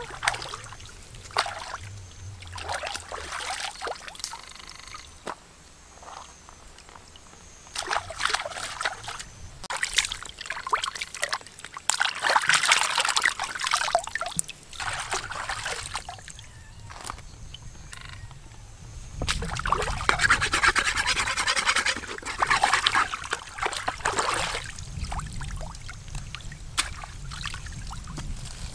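Water splashing and trickling in uneven bursts as fish and a crab are rinsed by hand in shallow stream water.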